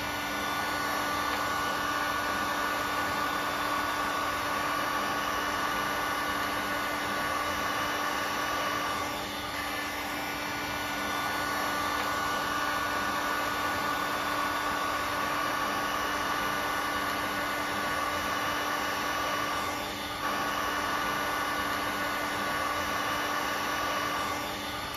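Heat gun running steadily, its fan blowing hot air with a constant whir and motor whine, while it reflows solder paste under small surface-mount resistors.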